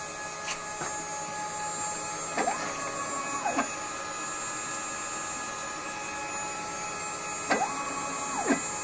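CNC router running: a steady high whine over a hiss throughout, and twice the axis motors move the gantry, their tone rising, holding level for about a second, then falling as they speed up and slow down.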